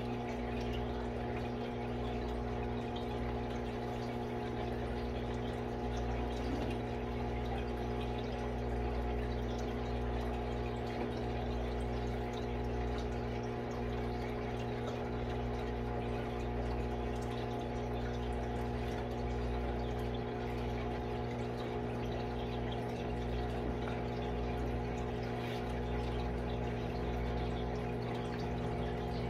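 Steady electric hum of a running water pump with a faint trickle of water, like an aquarium pump or filter running.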